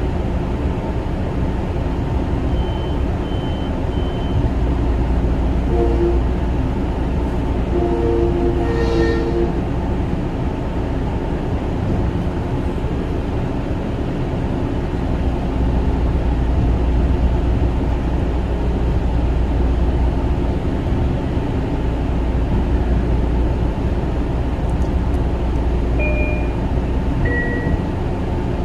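Long Island Rail Road Kawasaki M9 electric train running along the track with a steady rumble. A two-note train horn sounds briefly about six seconds in and again a little longer around eight to nine seconds. A few short high beeps come early and near the end.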